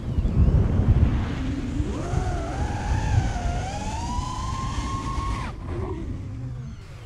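Wind buffeting the onboard camera's microphone, then from about two seconds in the whine of a 5-inch FPV quadcopter's BrotherHobby R3 2300kv brushless motors and Dalprop 5045 propellers, climbing in pitch as the throttle is pushed up. The whine cuts off suddenly about five and a half seconds in, as the throttle is dropped.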